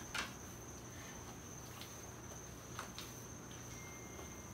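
Biscuit dough being kneaded by hand on a cutting board: a few faint soft taps, about a quarter second in and again near three seconds, over a quiet room with a steady high-pitched tone and low hum.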